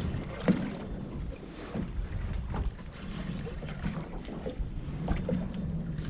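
Small open boat afloat: water washing against the hull and wind buffeting the microphone, with a few short knocks on the boat, the loudest about half a second in.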